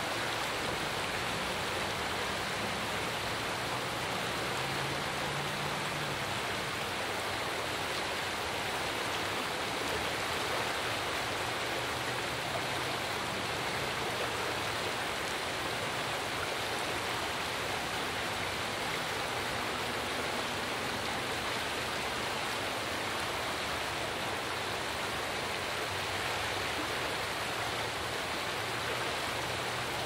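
Shallow creek rushing steadily over rocks in a small riffle.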